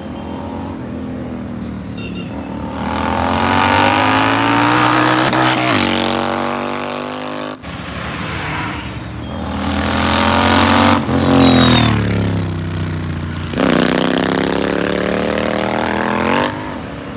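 Royal Enfield Continental GT 650's parallel-twin engine running with its exhaust removed, so it sounds raw and loud. It is revved up and let fall back several times, the pitch climbing and dropping with each blip, with a sudden break a little past the middle.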